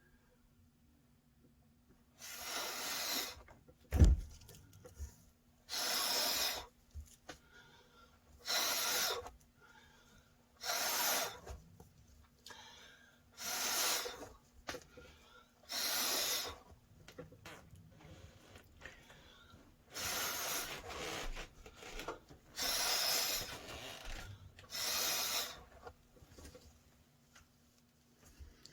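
Repeated bursts of hissing rush over the wet poured paint, about ten, each about a second long and two to three seconds apart, used to bring bubbles up through the paint. A sharp knock comes about four seconds in, over a faint steady hum.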